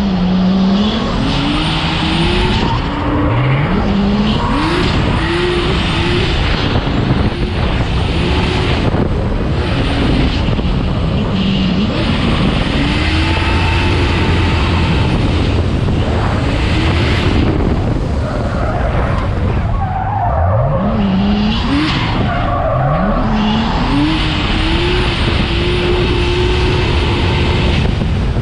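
Nissan Skyline R32 drift car's engine revving hard, its pitch climbing over and over and held high near the end, with tyres squealing as the car slides through the corners.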